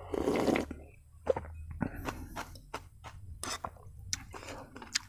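A loud slurp of soup from a bowl lasting under a second, followed by close-up chewing and eating noises with scattered short clicks.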